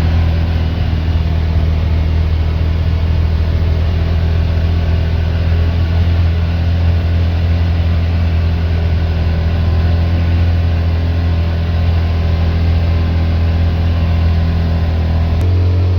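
Side-by-side UTV engine running steadily as it drives, a loud low drone with a haze of road noise; near the end the engine note steps up as the revs rise.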